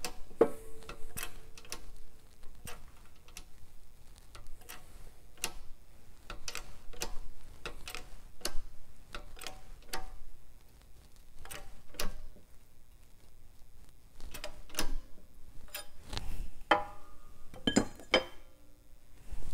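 A shop press pressing a wastegate bushing into a cast turbine housing: a run of sharp clicks, roughly one or two a second. Louder metallic clanks with brief ringing come near the end.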